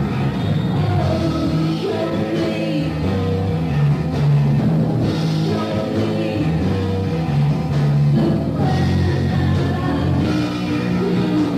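Rock-style music with guitar and drums, playing steadily at an even level.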